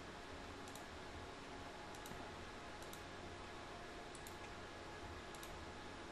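Computer mouse clicking: about five quick double clicks spread out over several seconds, over a steady low hiss.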